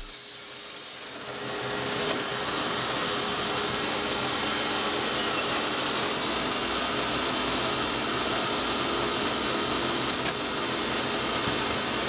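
Wood-Mizer LT40 band sawmill running, with a steady sawing and machinery noise that grows louder over the first second or two and then holds.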